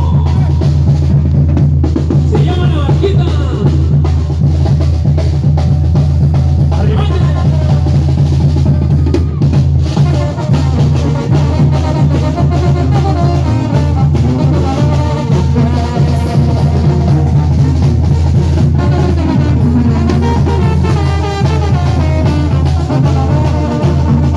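Live band music played loud from the stage: a steady drum-kit beat with heavy, boomy bass and a melody line over it, with no singing.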